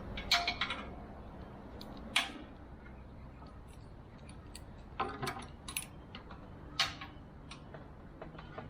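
Hand tools and small metal parts clinking in scattered short knocks, a few clustered together, as a vintage air compressor is dismantled.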